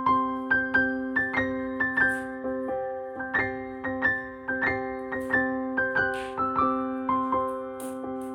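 Background music: a gentle electric-piano tune of evenly struck notes, two or three a second, over a held low note.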